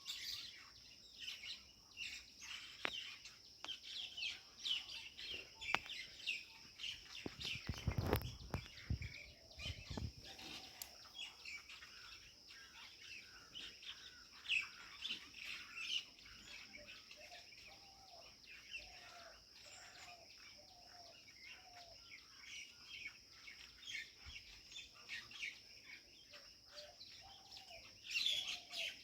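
Many small birds chirping and calling in quick, overlapping notes over a steady high-pitched insect drone, with a slower series of lower repeated calls in the second half. A brief low rumble comes about eight seconds in.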